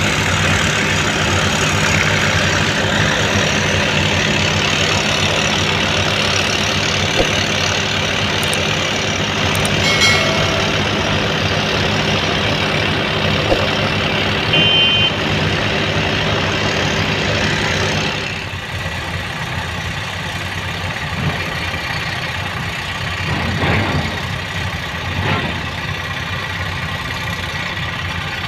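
Diesel engine running steadily at idle. About two-thirds of the way in, the sound drops and turns to a lower, duller engine note with a couple of brief swells.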